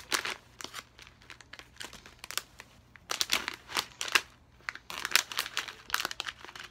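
Thin clear plastic candy bag crinkling in the hands, in bursts: a short one near the start, then longer spells a little after three seconds and again about five seconds in.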